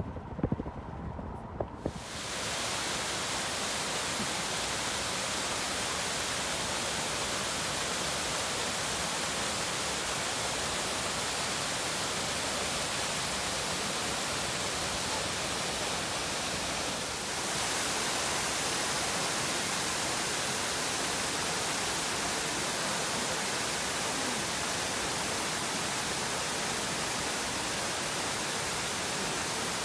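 A steady, even rushing noise that cuts in about two seconds in, after a few knocks, and holds, with a slight shift about seventeen seconds in.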